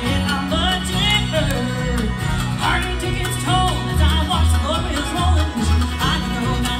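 Live bluegrass band playing: fiddle, banjo, mandolin and acoustic guitar over upright bass, with sliding high melody notes above a steady bass line.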